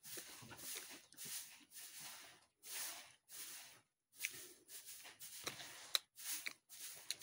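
A person chewing food close to the microphone: a run of short, breathy, wet mouth noises in even pulses, about two a second, with a few small lip clicks.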